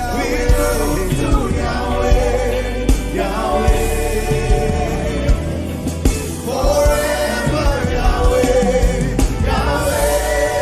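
Gospel worship song: voices singing together over instrumental backing with a steady beat.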